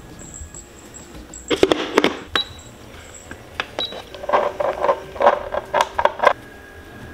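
Small glass essential-oil bottles and their plastic caps handled on a hard tabletop: a cluster of knocks and clicks about a second and a half in, then a quick run of about ten clicks and clinks a few seconds later.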